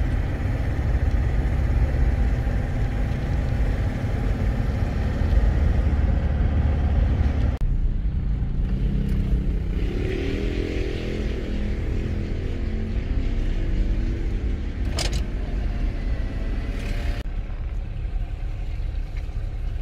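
Steady low rumble of a car's engine and tyres, heard from inside the cabin as it drives. The rumble eases about eight seconds in, a pitched engine hum comes and goes a little later, and one sharp click sounds about fifteen seconds in.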